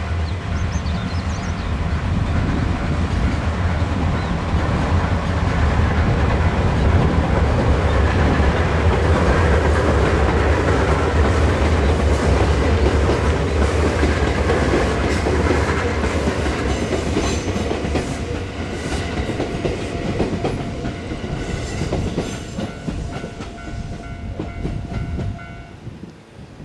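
Series 117 electric train passing over a level crossing: a heavy rumble that builds, peaks about a third of the way in and fades near the end, with wheels clicking over the rail joints. The crossing's warning bell rings throughout and stops about a second before the end.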